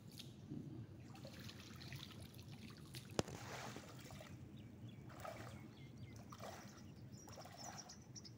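Water trickling and dripping off a wet cast net as it is gathered and lifted out of shallow water, with the slosh of legs wading through it. A single sharp click about three seconds in.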